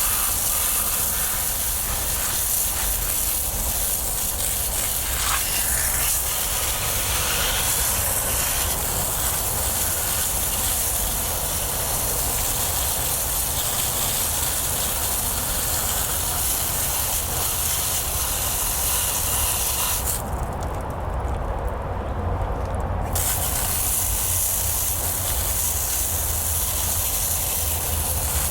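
Garden hose spraying water onto a plastic dishwasher filter, a steady hiss of spray rinsing off grease loosened by a soapy soak. The high part of the hiss cuts out for about three seconds some twenty seconds in, then returns.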